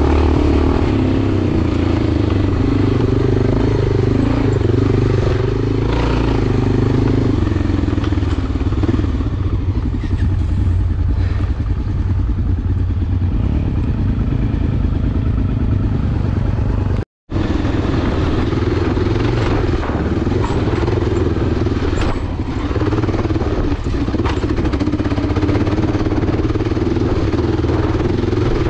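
Enduro motorcycle engine running while being ridden. Its revs ease off for several seconds in the middle and pick up again after the sound drops out for an instant about two-thirds of the way through.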